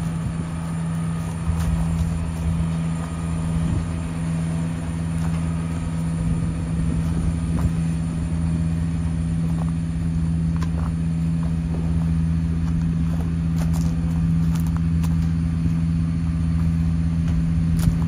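A vehicle's engine running steadily with a constant low hum, as it drives along, with a few faint knocks in the second half.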